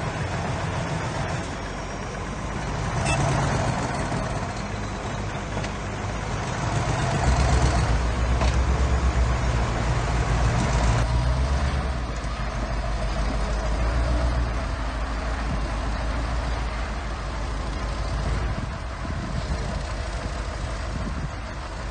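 Diesel engine of heavy earthmoving machinery running, working harder and louder for several seconds in the middle, with a couple of short knocks.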